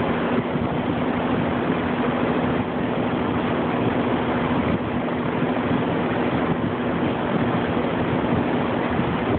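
Air conditioner fan running steadily, air rushing past the grille over a constant low hum. The compressor is not running, so the air is barely being cooled.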